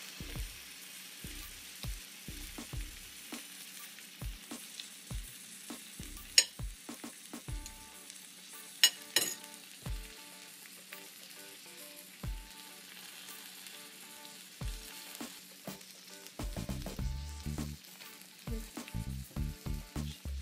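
Pears sizzling on a panini press with a steady hiss, while a metal spoon clinks sharply on a ceramic plate twice as goat cheese is spooned onto grilled pear halves. A run of low bumps and knocks from handling near the end.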